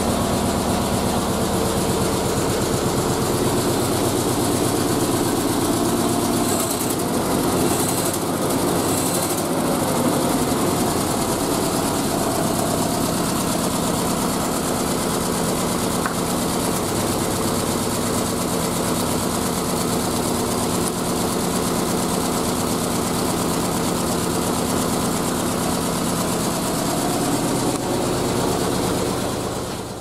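Triumph Spitfire's four-cylinder engine running steadily, still misfiring on cylinder 2 even with a new Lucas distributor, points and condenser fitted.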